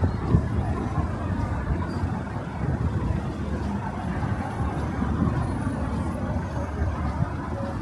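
Steady road traffic rumble: passing vehicles in a city street.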